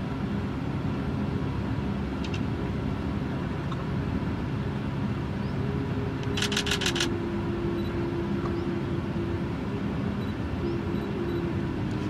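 A steady low rumble with a few held humming tones that shift in pitch now and then. About six seconds in comes a quick run of about six sharp clicks.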